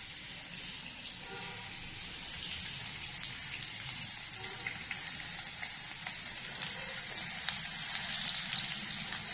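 Potato chunks frying in hot mustard oil in a non-stick kadai: a steady sizzle with scattered crackles and pops that come more often in the second half.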